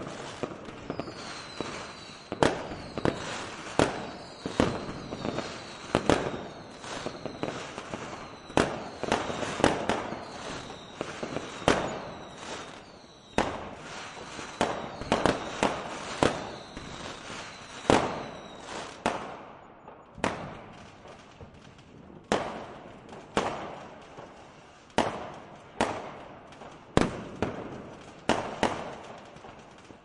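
Fireworks display: a steady string of sharp bangs, one or two a second, over a crackling haze, with short high falling whistles through the first two thirds. After that the whistles stop and the bangs come a little further apart.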